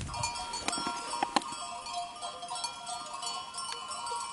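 Bells worn by a grazing flock of sheep, ringing and clanking at many different pitches in an uneven, overlapping jangle with occasional sharp clinks.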